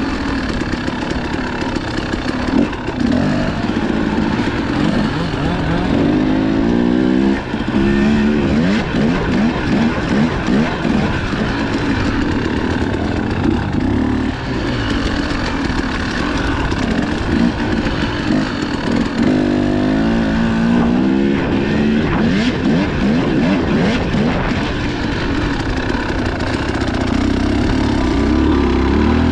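Motocross dirt bike engines accelerating hard over a dirt track, the engine pitch climbing and dropping again and again with throttle and gear changes.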